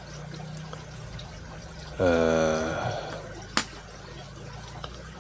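Bench work on a phone: a short vocal sound from a person about two seconds in, then a single sharp click about a second later, over a steady low hum.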